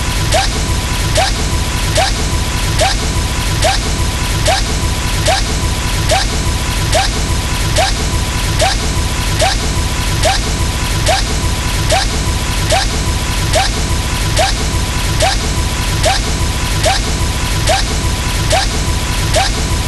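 A short sound repeated in a loop about once every 0.8 seconds, each repeat with a quick rising chirp, over a steady high tone and dense noise.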